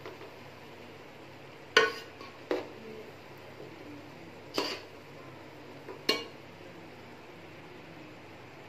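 Spoon knocking against a cooking pot four times while rice is gently mixed.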